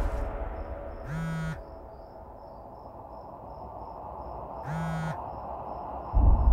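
Crickets chirping steadily in a faint, even run of high chirps. A phone vibrating on the bed buzzes briefly twice, about a second in and again near five seconds, and a low thud comes near the end.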